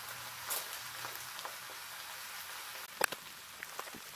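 Eggs being cracked into a bowl: a light click about half a second in and a sharp crack of eggshell about three seconds in, followed by a few faint clicks. Under it runs a steady soft sizzle from fennel frying in olive oil on a griddle.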